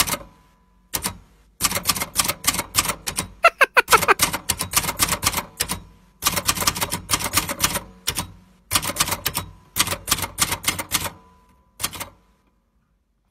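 Typewriter sound effect: fast runs of key clacks in several groups broken by short pauses, with a brief wavering tone about three and a half seconds in. It stops a second or so before the end.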